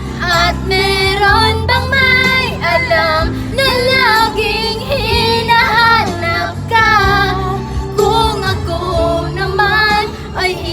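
A female voice singing a slow song with vibrato over instrumental backing music.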